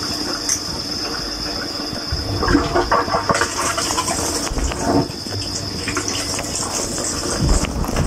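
Water spraying and splashing inside a running dishwasher during its wash cycle, heard from within the tub, with louder surges now and then.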